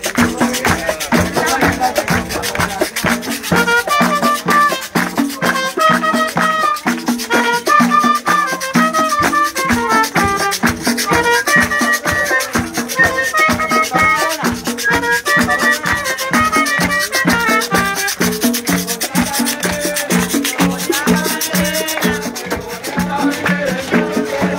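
Live acoustic Puerto Rican street music: a shaker rattles a steady fast rhythm over a low repeating bass line, while a trumpet plays a stepwise melody through the middle.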